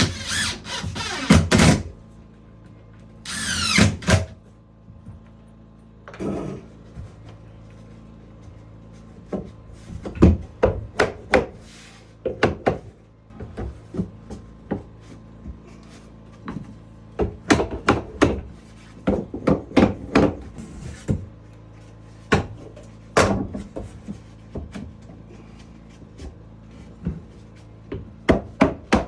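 A power tool runs in two short bursts, each falling in pitch, then comes a long stretch of irregular knocks and taps on wood, over a steady low hum.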